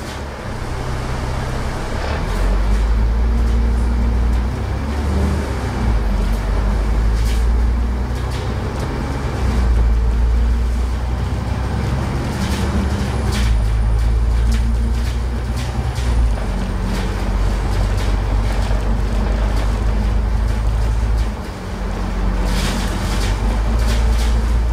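Alexander Dennis Enviro500 MMC double-decker bus under way, heard from inside the upper deck: a deep diesel engine drone with road noise that rises in level over the first couple of seconds. There is a brief drop in level about three quarters through, and light rattles throughout.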